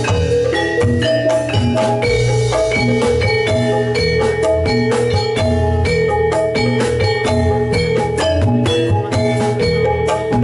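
Javanese gamelan music for a jathilan horse dance: metal-keyed mallet instruments strike a busy run of notes over low drum strokes.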